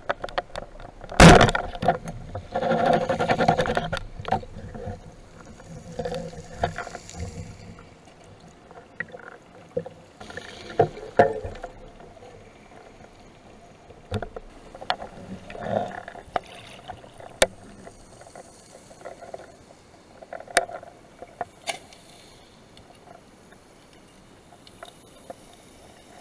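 A rubber-band speargun fires underwater with one sharp, loud crack about a second in. Two seconds of dense rattling and clatter follow as a grey mullet is struck, then scattered clicks and knocks of the shaft and gear being handled, thinning out towards the end.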